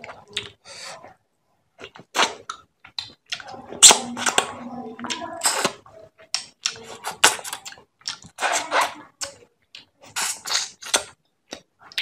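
Close-up hand-eating sounds: fingers squishing and mixing rice into fish head curry on a metal plate. It comes as irregular wet squelches and clicks, with a few sharp louder ones, the loudest about four seconds in.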